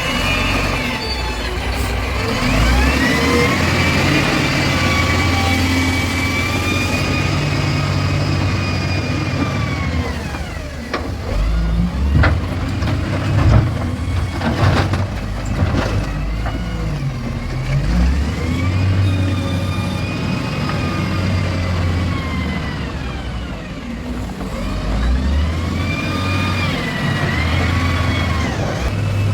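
Excavator's diesel engine rumbling and repeatedly rising and falling in pitch as it revs under hydraulic load, with a cluster of sharp knocks about halfway through.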